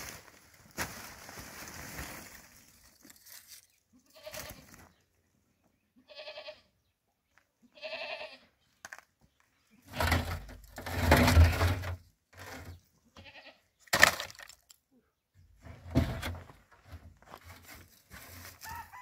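Livestock bleating: two short, wavering bleats about six and eight seconds in, amid louder rustling and knocks, with a sharp click near fourteen seconds.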